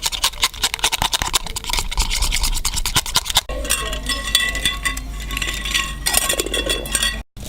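Hair dye being mixed in a bowl with a tint brush: quick, dense scraping and tapping strokes against the bowl. The sound breaks off about three and a half seconds in and resumes with a slightly different, brighter scraping.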